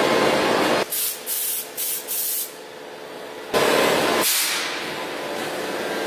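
Pneumatic spray gun hissing as it lays black protective coating on the van's floor seams. It starts with a longer spray, then four quick short bursts, a pause, and another spray.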